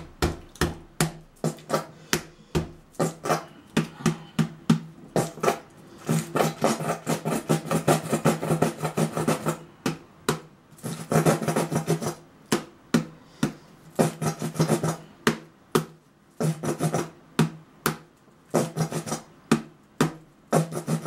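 A palm slapping the bottom of an upside-down plastic sauce bottle again and again to shake the sauce down to the cap. It goes at about two to three slaps a second, with quicker runs of slaps in the middle.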